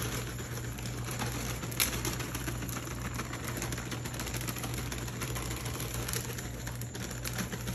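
Crispy fried onions sprinkled by hand over cooked rice in an aluminium foil tray, making light, irregular pattering and crackling ticks, over a steady low hum.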